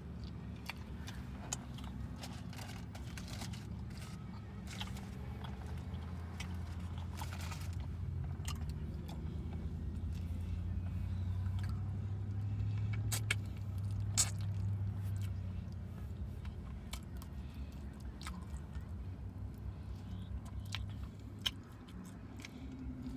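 Mouth sounds of someone eating chicken wings: chewing, with scattered short clicks and smacks. Under them runs a steady low hum from inside a car, which grows louder for several seconds in the middle.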